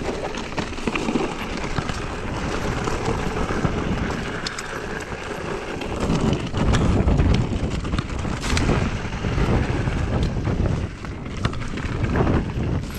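Wind buffeting the microphone while riding a mountain bike, with tyre noise over rough ground and scattered clicks and rattles. The low buffeting grows heavier a little past the middle.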